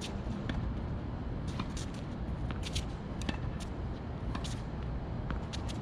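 Tennis balls being struck by rackets and bouncing on the court: a string of short, sharp pops at irregular intervals, sometimes two or three close together, over a steady low rumble.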